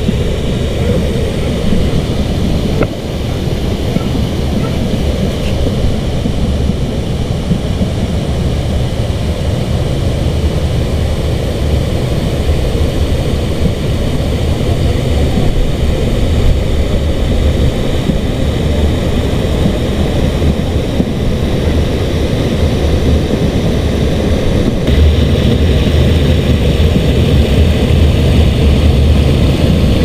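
River water rushing over a low stone weir and through rapids: a steady, loud rush that grows a little louder near the end.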